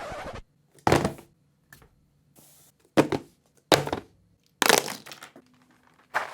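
A handful of separate sharp knocks and clacks, about five spread over six seconds with short pauses between them.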